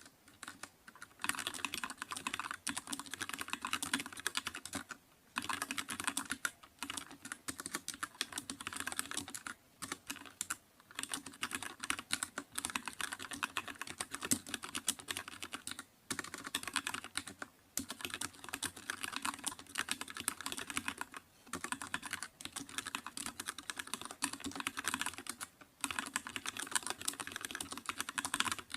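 Computer keyboard being typed on: fast, continuous runs of keystroke clicks, broken by brief pauses every few seconds.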